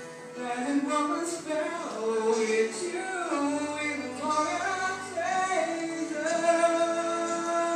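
Music with a singing voice carrying a slow melody of long held notes.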